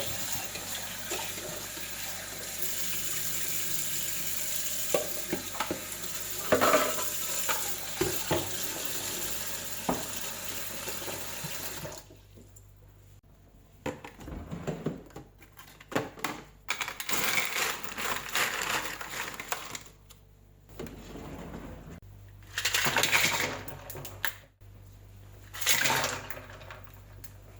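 Kitchen tap running steadily into a sink for about twelve seconds, with a few small knocks, then turned off. After that come short, separate bursts of water and handling noise.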